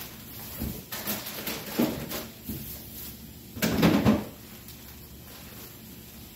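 Rummaging in a refrigerator's lower shelves and drawers: a few scattered knocks and clunks, then a louder, longer clatter about four seconds in.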